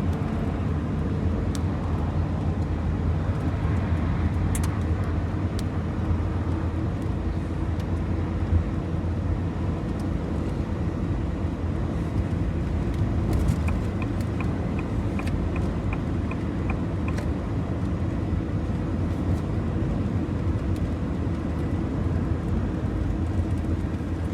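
Steady engine and road noise inside a moving vehicle's cab. About halfway through, a run of short high beeps sounds, two or three a second for a few seconds.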